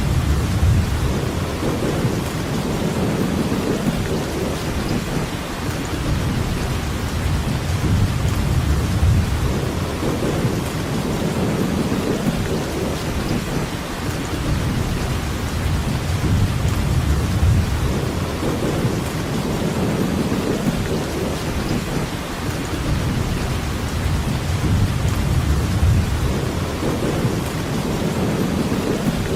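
Steady rain falling in a thunderstorm, an even hiss with a low rumble that swells and fades every few seconds.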